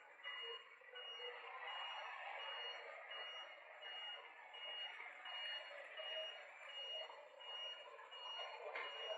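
An electronic beep repeating steadily about one and a half times a second, over a constant background hiss.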